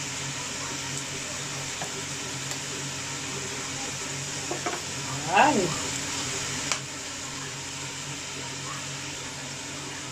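Chicken pieces sizzling steadily in a pot on a gas burner, just seasoned with fish sauce. About five seconds in a brief squeal rises and falls in pitch, and a sharp click follows shortly after.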